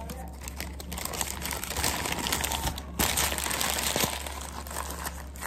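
Paper food wrapper crinkling and rustling as it is handled, growing denser about a second in, with a sharp crackle about three seconds in. A steady low hum underneath.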